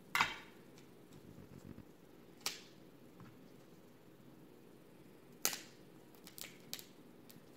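Cooked crab leg shells cracking and snapping as gloved hands break them apart: three sharp cracks a couple of seconds apart, the first the loudest, then a run of smaller clicks near the end.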